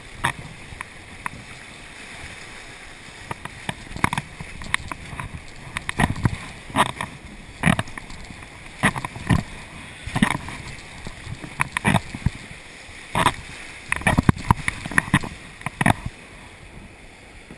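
Whitewater rapids rushing around a kayak, with sharp paddle splashes about once a second and a quick flurry of them near the end.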